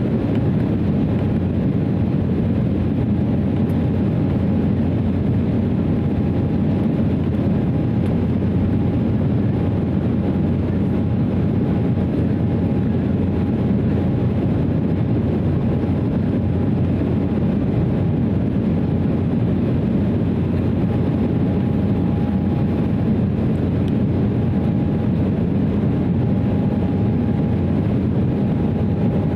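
Steady cabin noise inside an Embraer 190 in flight: the GE CF34-10E turbofans and the airflow past the fuselage make a deep, even drone with a faint steady tone above it.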